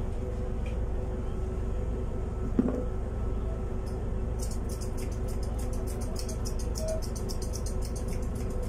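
Thinning scissors snipping a Persian cat's fur around the head: a fast, even run of small crisp clicks, about five or six a second, starting about halfway through. It sits over a steady low hum, with a single knock about a third of the way in.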